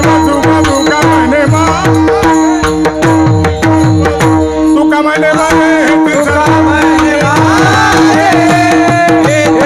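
Varkari kirtan music: a steady held drone, quick mridang drum strokes whose deep bass falls in pitch on each stroke, and small cymbals clashing in time, with a voice singing over them.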